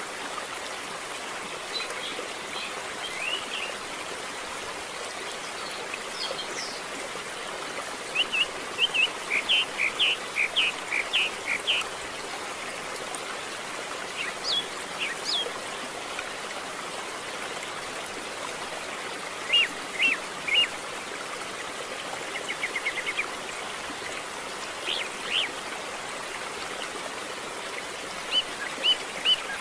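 Two-day-old canary chick begging with short, high cheeps in quick clusters: a run of a dozen or so about a third of the way in, then shorter runs of two to four, over a steady hiss.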